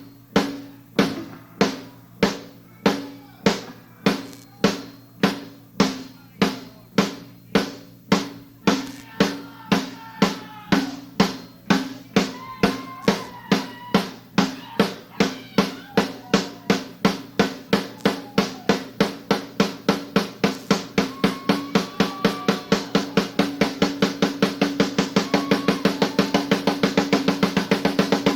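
Rock drum kit played live, a single repeated drum hit that steadily speeds up from about two strikes a second to about four.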